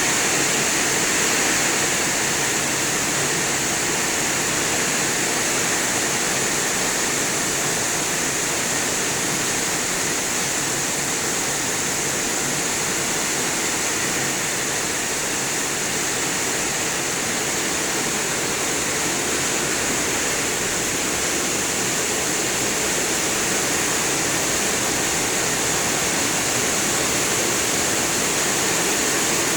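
Heavy rain falling in a sudden downpour, a steady, unbroken rush of water.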